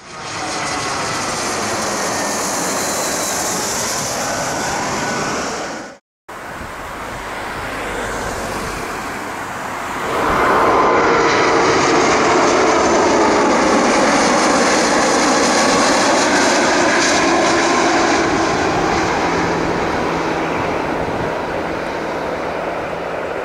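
Jet aircraft noise that cuts out for a moment about six seconds in. About ten seconds in, an Airbus A330's engines on landing approach swell loud as it passes low overhead, with slowly gliding tones, then fade slowly as it moves away.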